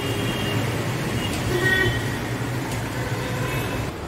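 Road traffic on a busy street below: vehicle engines running with a steady hum, and a short horn beep about a second and a half in. The traffic sound drops near the end.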